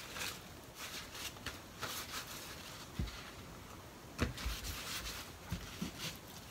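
Paper towel wiping soaked konbu kelp sheets on a cutting board: faint rubbing and rustling, with a few light taps on the board, the clearest about three and four seconds in.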